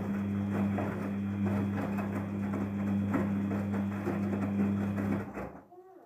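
Daewoo DWD-FT1013 front-loading washing machine tumbling a wet load during a cotton 40°C wash: a steady motor hum with the sloshing and splashing of laundry in water. It stops suddenly about five seconds in as the drum comes to rest.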